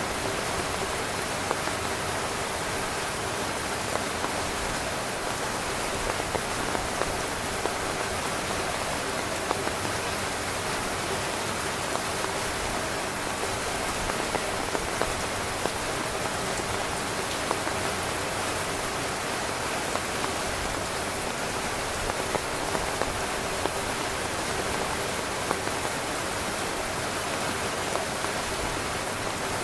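Heavy rain falling on a tent's fabric: a steady, even hiss of rain with many scattered louder drop hits.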